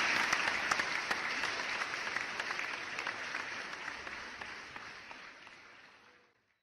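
Audience applauding, dense clapping that fades out gradually and stops about six seconds in.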